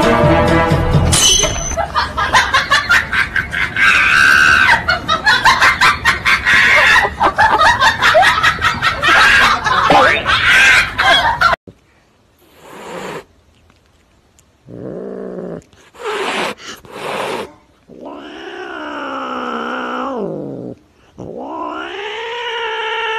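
Background music with a busy clicking beat for about the first half, then it stops abruptly. After a few short sounds, a house cat meows twice in long drawn-out calls: the first rises and falls, the second rises and is held.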